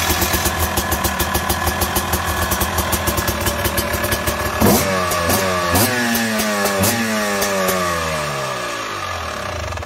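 Two-stroke motocross bike engine idling with a rapid popping crackle. About halfway through it is blipped three or four times in quick succession, and the revs glide back down to idle after each blip.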